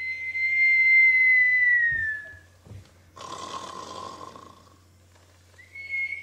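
A person doing a comic cartoon snore: a long held whistle that sags in pitch at its end, a rasping snore-like breath, then the whistle again near the end.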